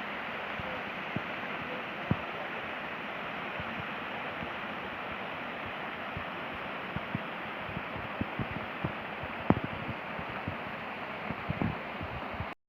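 Steady rushing outdoor noise with scattered soft knocks and clicks, cut off abruptly near the end.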